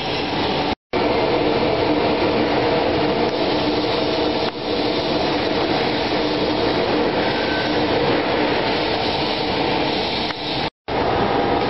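Forced-draft gas burner on a peanut roaster firing, its blower and flame making a loud, steady rushing noise. The sound cuts out completely for a moment twice, about a second in and near the end.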